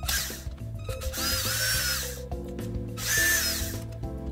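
Cordless drill with a 10 mm socket, run in short bursts to unscrew the camshaft assembly bolts: each run is a motor whine that rises as it spins up and falls as it stops, with a longer run about a second in and a shorter one near the end.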